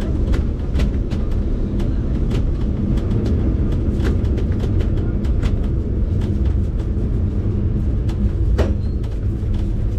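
Vintage wooden-bodied electric tram running along the street, heard from inside the car: a steady low rumble of steel wheels on the rails, with frequent short, sharp clicks scattered irregularly throughout.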